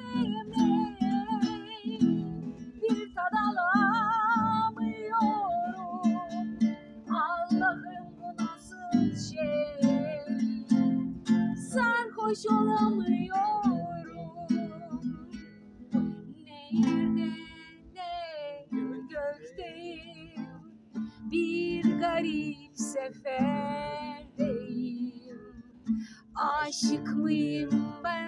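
A woman singing a song to a strummed acoustic guitar, her held notes wavering.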